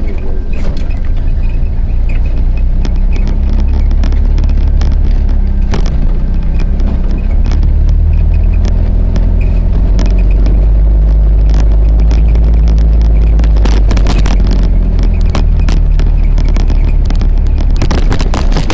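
Vehicle engine running steadily over a rough unpaved track, with a heavy low rumble and frequent knocks and rattles from the bumpy ground.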